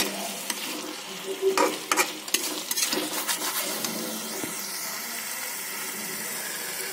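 Bhuna chicken frying in its masala in a pan, sizzling steadily, while a metal spatula stirs it, with a run of scrapes and knocks against the pan between about one and a half and three and a half seconds in.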